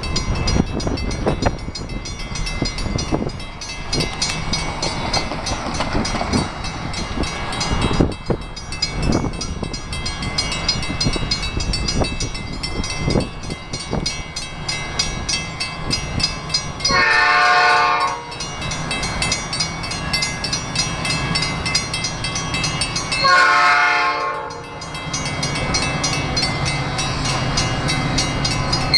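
An approaching EMD F40PH diesel locomotive sounds its horn for a grade crossing: two long chord blasts about six seconds apart, with a third starting right at the end, over a low engine rumble that grows as the train nears. Before the horn, gusty low rumbling and scattered knocks fill the first half.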